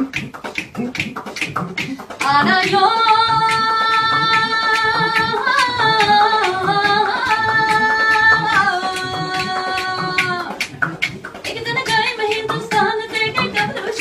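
A woman singing a Punjabi folk song unaccompanied. From about two seconds in until about ten seconds in she draws out one long, held line that wavers slightly, with shorter phrases on either side. Listeners clap along in a steady rhythm.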